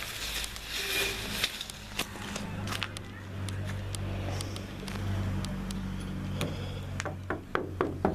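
A steady low engine hum, like a motor vehicle running nearby, holding one even pitch for several seconds, followed near the end by a few sharp clicks and knocks.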